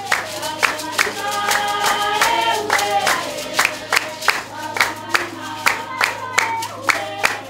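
Voices singing a traditional Basarwa (San) dance song, carried by sharp handclaps in a steady beat of about two to three claps a second.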